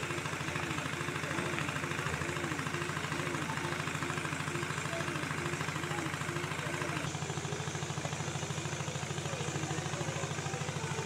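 An engine running steadily at idle, with a fast even pulse.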